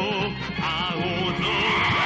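Background music: an instrumental passage with wavering melody lines over sustained low notes, no words.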